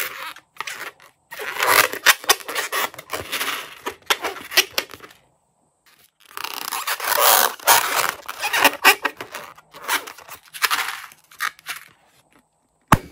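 Latex balloon being squeezed and handled, crinkly scraping and rustling in two long stretches, then a single sharp snip of scissors cutting into the balloon near the end.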